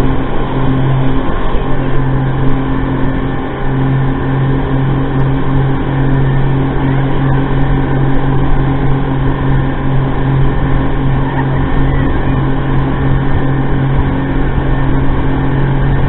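Speedboat engines running at a steady cruising speed, a constant drone, over the loud rush of the hull cutting through the water and throwing spray.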